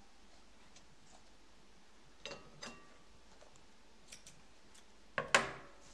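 Scissors cutting a strand of wool yarn: a few short clicks and snips, with the loudest double snip near the end.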